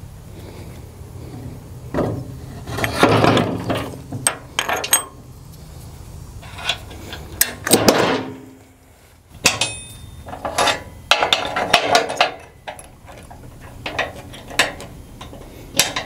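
Irregular metal clanks, knocks and scrapes as the tail wheel of a JBar rotary mower is handled and its post is slid into the steel bracket on the mower frame, in several separate bouts with short quiet gaps between.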